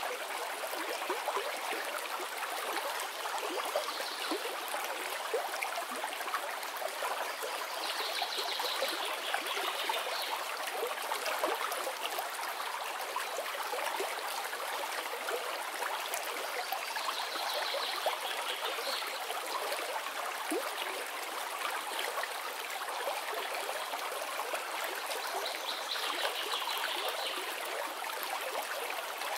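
Steady bubbling and trickling of aquarium water from an air stone's bubble column and the submersible pumps, a dense even fizz of small bursting bubbles.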